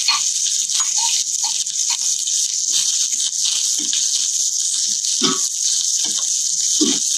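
Sliced onions and green chillies sizzling steadily in a hot stainless-steel skillet, stirred with a spatula that scrapes and knocks against the pan a few times.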